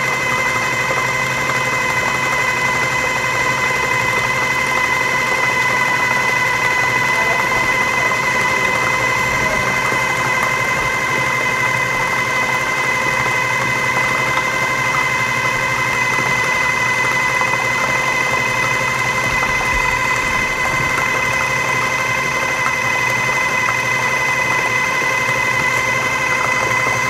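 Food processor motor running steadily on low, a constant whine, blending avocado pesto as olive oil is slowly drizzled in through the feed tube to emulsify it.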